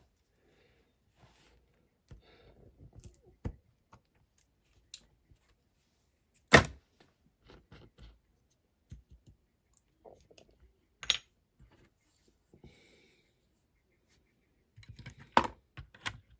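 Scattered light clicks and knocks of small objects being handled on a work surface, with one sharp knock about six and a half seconds in, another about eleven seconds in, and a short cluster of taps near the end.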